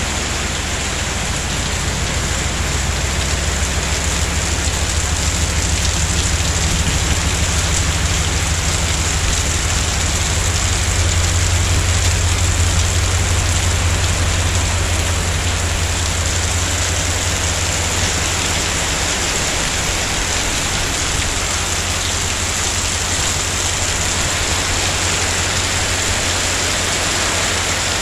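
Heavy rain pouring down on a garden, patio paving and a roof, a steady dense hiss, with a low rumble underneath that swells around the middle.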